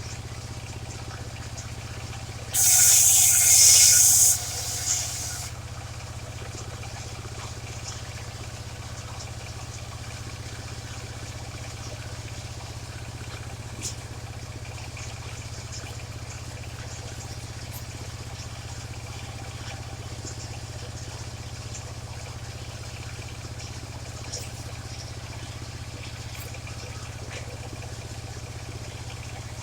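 A mobile circular sawmill's engine runs steadily, turning the blade. About two and a half seconds in, the saw bites into waru wood in a loud, hissing cut lasting under two seconds, then the saw runs on without load.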